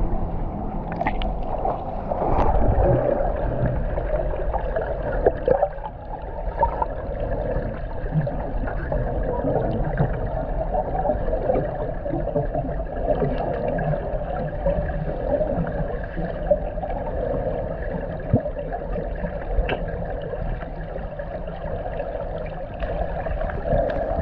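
Pool water heard underwater: a muffled, steady wash with gurgling and a few scattered sharp clicks.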